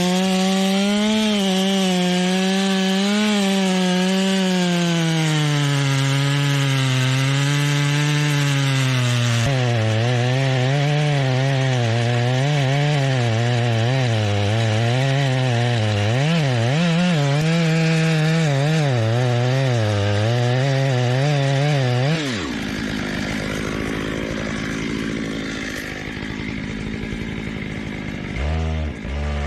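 Petrol chainsaw cutting into a large tree, its engine note wavering up and down as the chain bites into the wood. About 22 seconds in the note drops sharply and the sound goes quieter and rougher, then the saw revs up again near the end.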